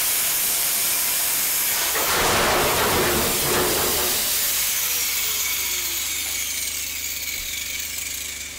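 Angle grinder with a cut-off disc cutting through corrugated sheet steel, the noise growing denser around two to four seconds in as the cut-out panel comes free. The grinder then winds down with a falling whine, the noise slowly fading toward the end.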